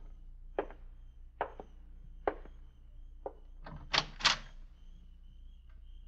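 Radio-drama sound effect: four slow, evenly spaced footfalls, then two knocks on a wooden door about the middle, announcing a visitor.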